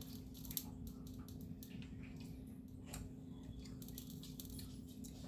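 Quiet room tone with a steady low hum, and faint scattered clicks and rustles of handling.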